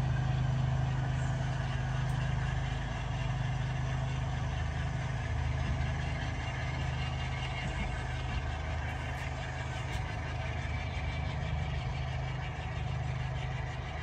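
Sound-equipped model diesel locomotive's engine sound, running steadily at low revs, while a model freight train of covered hoppers rolls slowly past.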